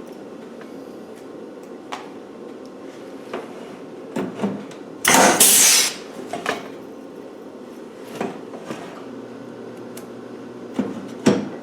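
Electric drill running briefly, about a second, as it drills a rivet hole through a sheet-metal seat box panel, about halfway in. Light tool-handling clicks and knocks are scattered around it.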